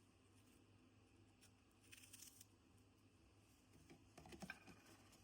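Near silence with a few faint short clicks and rustles: strawberries being hulled and cut into quarters with a knife, a small group about two seconds in and a busier one near the end.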